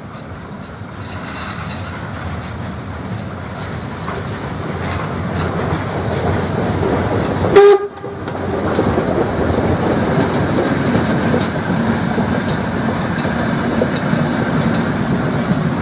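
Class 86 steam tank locomotive 86 333 approaching and passing with a train of passenger coaches, growing steadily louder. About halfway through it gives one short, very loud whistle blast, and then the coaches roll past.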